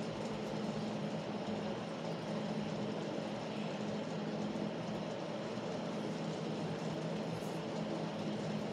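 Steady room hum: a few low, even tones over a constant hiss, with no changes and no distinct strokes.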